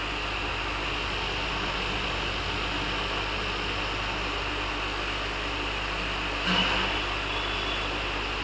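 Steady hiss with a low hum from running fish tank equipment. A single brief knock about six and a half seconds in.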